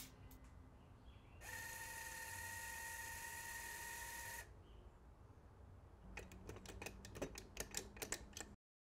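Faint mechanical sounds: a steady hissing whine lasts about three seconds and stops abruptly. Later a run of quick, uneven clicks and ticks follows.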